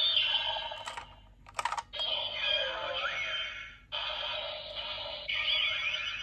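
DX Blazar transformation toy playing electronic sound effects through its small tinny speaker, its error sound for a failed recognition, with a few sharp plastic clicks in the first two seconds as the device is worked; the sound changes character twice.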